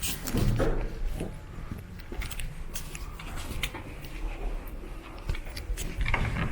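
Footsteps with scattered clicks and knocks and a low rumble of movement.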